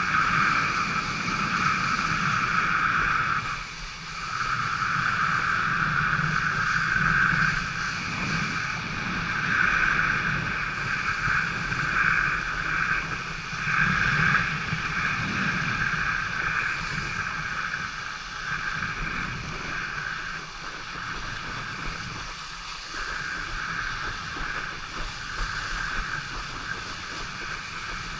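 Steady rush of wind and water spray past a towed wakeboarder, with a brief dip about four seconds in and a somewhat quieter rush in the second half.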